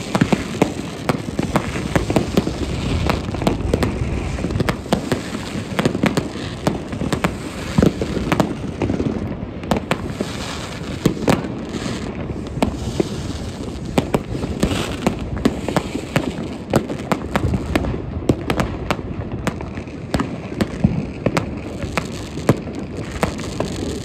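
Many consumer fireworks going off at once: rockets, firework cakes and firecrackers banging and crackling in a constant, irregular barrage, with sharp reports several times a second over a continuous rumble.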